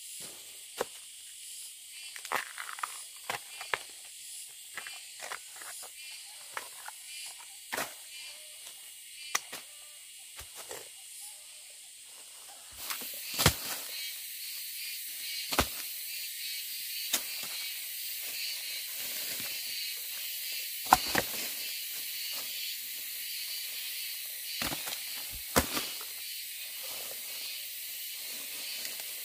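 Outdoor background: a steady high hiss that gets louder about thirteen seconds in, with irregular clicks and knocks scattered through, the sharpest about thirteen, sixteen and twenty-one seconds in.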